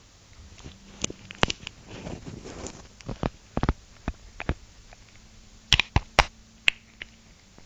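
Irregular sharp clicks and taps with a stretch of rustling about two seconds in, close against the microphone, as a small white pet animal moves and noses about against the phone on a fabric sheet.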